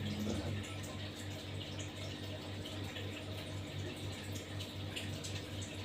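Steady background sound like running water, with a low hum under it that pulses evenly about four to five times a second.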